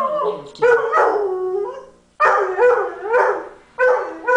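Dog howling along to a television commercial: a run of long howls, each sliding down in pitch, one after another with short breaks between.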